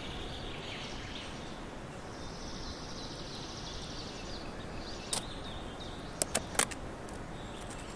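Steady outdoor background noise with faint high chirping, then a sharp click about five seconds in and three quick sharp clicks a second later as a plastic tub of screws and metal fittings is set down on the wooden chair frame.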